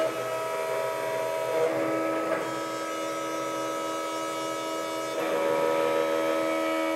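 CNC engraving machine cutting into a plastic plate: a steady whine from the spindle and servo motors with a hiss of cutting, the tones shifting about two seconds in and again about five seconds in as the head changes direction.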